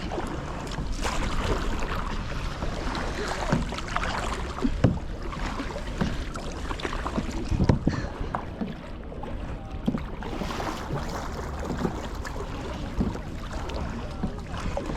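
Kayak paddling: the paddle dipping and splashing in the water with irregular knocks, over a steady rumble of wind on the microphone.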